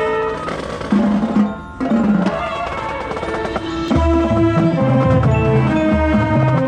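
Marching band playing: winds and brass hold pitched notes over mallet and wood-block percussion. It drops back briefly about a second and a half in, then the low brass comes in strongly about four seconds in and the sound grows louder.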